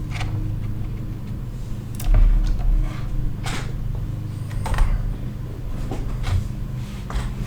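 Light clicks and taps of hands and small tools handling an opened iPad and its loose screen, with a dull thump about two seconds in, over a steady low hum.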